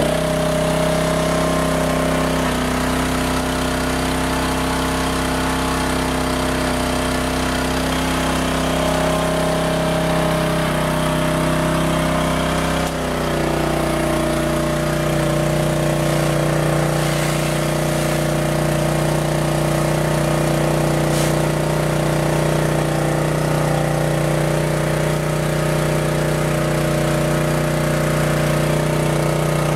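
Karcher pressure washer's 9 hp Honda single-cylinder engine running steadily. About thirteen seconds in its note drops slightly and settles, as the pump comes under load with the wand spraying.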